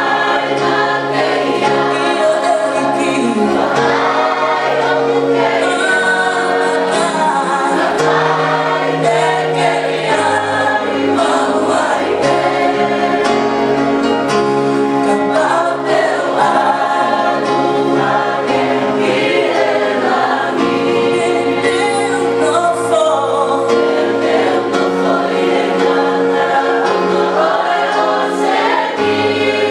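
Choir singing a Tongan hymn (hiva) in several-part harmony, with long held chords.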